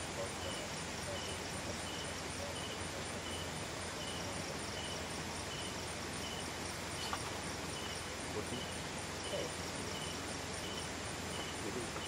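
Insects chirping: a short chirp repeating at an even pace over a fast, high-pitched pulsing trill, against a steady hiss.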